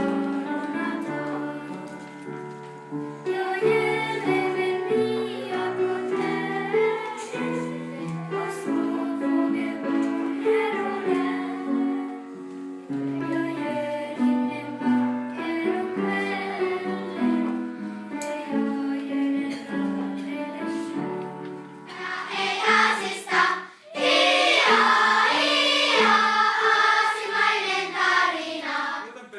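Children's choir singing a melody in long held notes. Near the end it breaks off briefly, then comes back louder and fuller.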